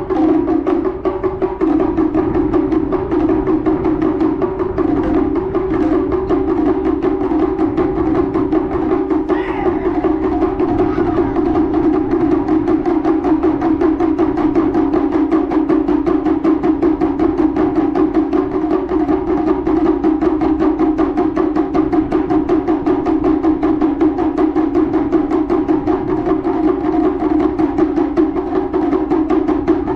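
Taiko drums played in a fast, steady, unbroken stream of strokes.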